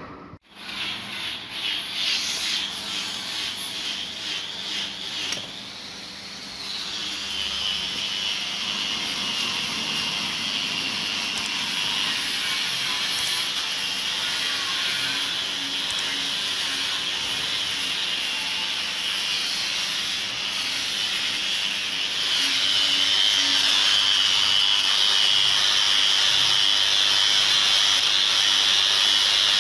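A power grinder working a stainless steel bracket: a steady, loud abrasive hiss that grows louder about two-thirds of the way through. It is preceded by a few seconds of short rhythmic scraping strokes.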